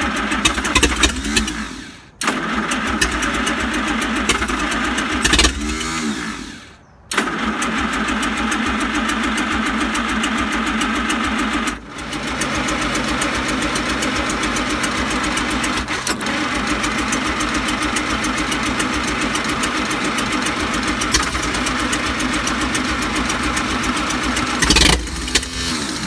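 Continental F244 four-cylinder flathead engine in a Dynahoe backhoe being cranked and started in several short attempts. The sound cuts out briefly about 2 s and again about 7 s in, with a pitch slide just before the second stop. From about 12 s it runs steadily.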